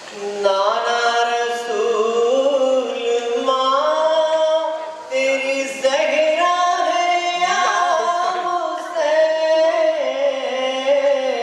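A man singing a devotional recitation with no instruments, in long drawn-out held notes that slide from pitch to pitch, with a couple of short breaks for breath.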